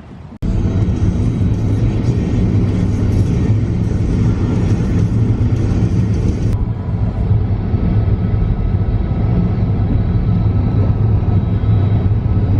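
Skateboard wheels rolling on concrete: a loud, steady rumble that starts suddenly and changes character partway through, where the footage cuts.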